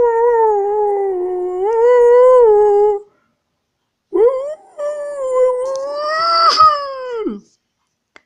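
Small terrier howling: two long howls about three seconds each with a second's pause between, the second one rising slightly and then dropping off at its end. A short click about six and a half seconds in.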